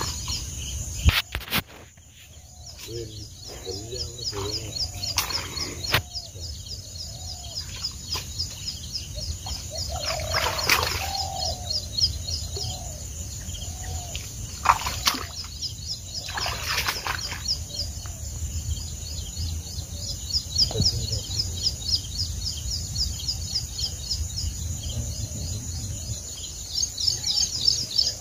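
Rapid, continuous high-pitched chirping of birds by a river, with brief rustles and knocks as leafy plants are pushed through and a low rumble underneath.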